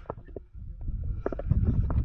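Footsteps and gear knocking as a player moves off on foot, irregular thuds and clicks. A low rumble on the body-worn microphone gets louder about halfway through.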